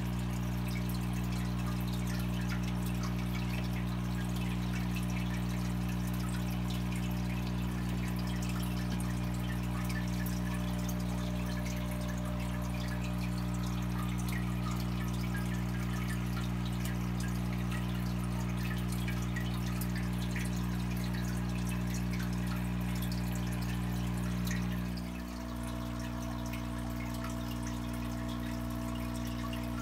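Aquarium filter pump humming steadily while water trickles and drips in the tank. The hum dips and changes slightly near the end.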